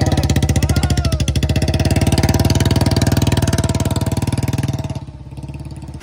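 Royal Enfield motorcycle's single-cylinder engine running steadily close by, its exhaust giving a rapid, even thump; it drops in loudness about five seconds in.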